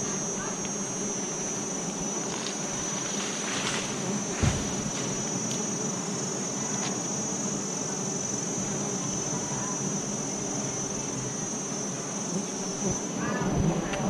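Swarm of wild honeybees buzzing steadily around a hive that is being cut open, over a steady high insect whine. There is a single thump about four and a half seconds in.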